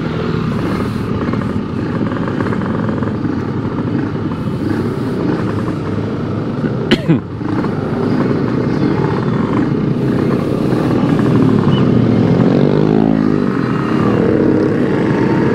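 Single-cylinder two-stroke engine of a Yamaha RX-King 135 running through an aftermarket CRC Series exhaust. It runs steadily, its pitch rising and falling a few times near the end. There is a sharp knock about seven seconds in.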